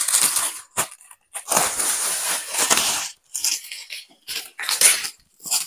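Clear plastic stretch wrap crinkling and rustling as it is pulled and peeled off a cardboard box. It comes in irregular bursts, the longest lasting over a second, followed by several short crackles.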